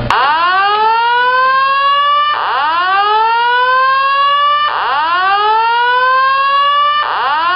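Voice evacuation fire alarm system sounding its alert tone after a manual pull station is pulled: a loud rising whoop that starts abruptly, sweeps up and levels off, repeating about every two and a half seconds.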